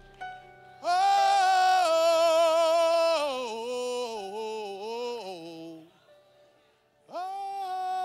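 A solo voice singing a long high note with vibrato, then stepping down through a short falling phrase; after a brief pause about seven seconds in, another long held note begins.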